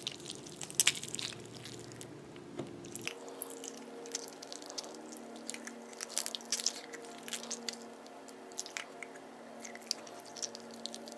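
Faint, irregular wet squelching and sticky clicks of thick slime being squeezed by hand out of a rubber squishy-ball pouch.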